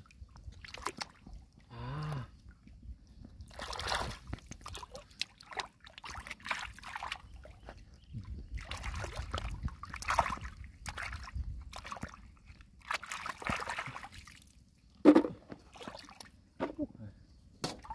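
Shallow water sloshing and splashing in short bursts a few seconds apart.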